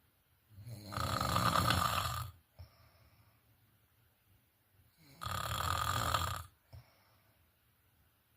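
A person snoring in sleep: two long snores about four seconds apart, each lasting a second and a half or more.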